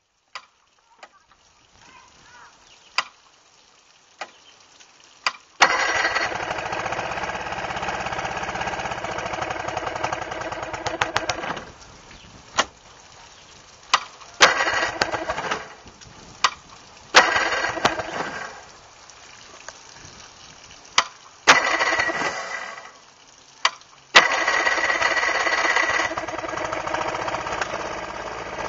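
1973 Chrysler 70 hp three-cylinder two-stroke outboard on a cold start. It catches about five seconds in and runs, then falls away. Several sharp cracks each set off another short burst of running, until near the end it settles into a steady run.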